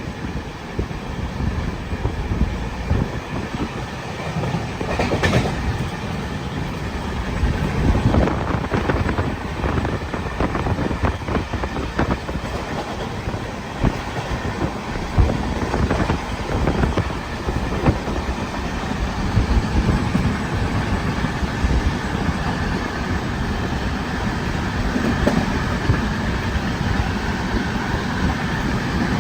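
Train running along the track, its wheels clattering over the rails.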